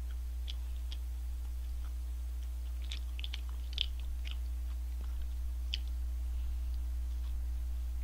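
Close-miked chewing of a McSpicy Shanghai Deluxe fried chicken burger: scattered small mouth clicks and soft crunches of the fried coating, thickest in the middle, over a steady low hum.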